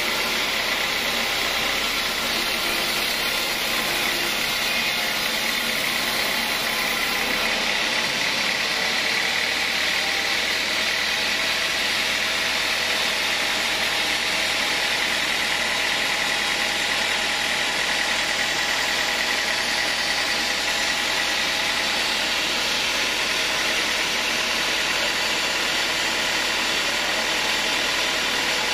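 Band sawmill running and ripping lengthwise through a large acacia hardwood log: a steady, loud mix of machine noise and blade hiss with a faint high whine.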